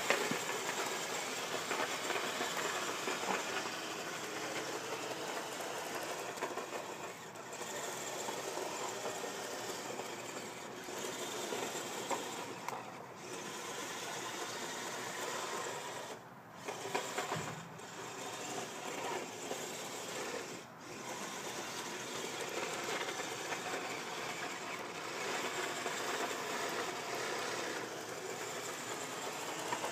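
Radio-controlled snow groomers running on their tracks, their small electric drive motors and geared tracks making a steady mechanical noise that dips briefly a few times.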